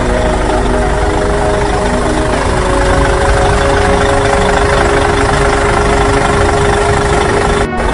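Tractor engine running steadily, with a brief break near the end.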